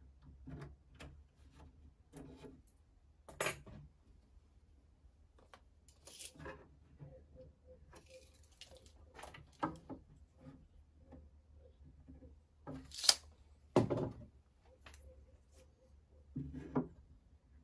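Scattered light clicks and taps from a tape measure and pencil being handled against the wooden sides of a chest, with one sharp snap about two-thirds of the way through and a duller knock right after.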